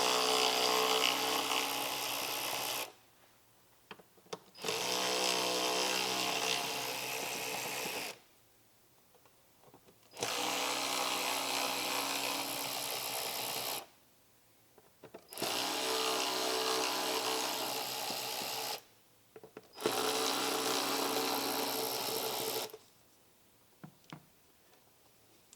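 Cordless drill-driver with a T25 Torx bit running in reverse to back out the radiator shroud screws. It runs five times, each run a steady motor whine lasting three to four seconds, with short pauses between.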